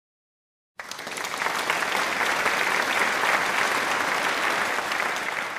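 Recorded applause: many hands clapping, beginning suddenly about a second in and holding steady, played as an outro sound effect.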